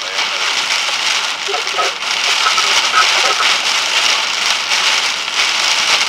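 Steady hiss of wind-driven rain against a slowly moving car in 50–60 mph winds, heard from inside the cabin.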